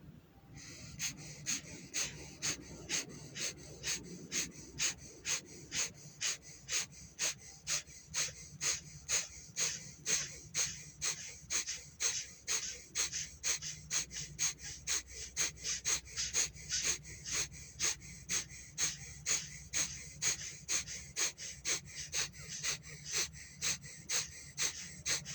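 Rapid, forceful rhythmic breaths through the left nostril in yogic pranayama channel-pumping, about two sharp nasal air rushes a second, steady throughout.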